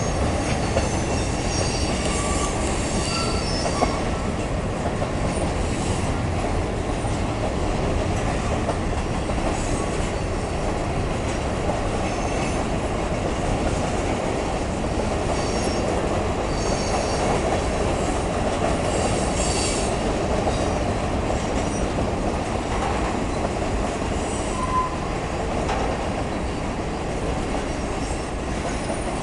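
Freight cars of a CSX mixed freight train rolling past: a steady rumble of steel wheels on rail, with high-pitched wheel squeal coming and going every few seconds.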